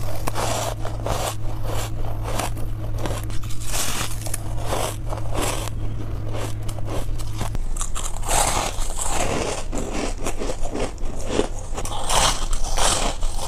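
Ice being bitten and chewed: rapid, irregular crunches and crackles as packed, powdery ice breaks between the teeth. A low steady hum under the first half stops about halfway through.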